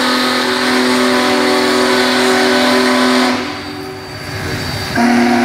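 Steam locomotive chime whistle: one long blast of a steady chord that stops about three seconds in, then a second blast near the end.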